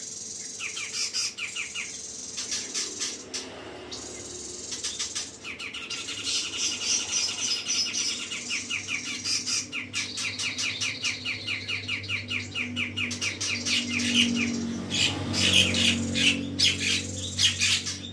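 Grey-cheeked bulbul (cucak jenggot) singing in chattering trills of fast repeated notes, with one long run from about six to fourteen seconds in and louder, denser notes near the end.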